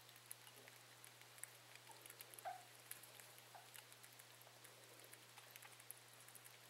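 Near silence: faint, scattered soft clicks and rustles from baby cottontail rabbits nibbling at a feeding syringe in hay, over a steady low hum.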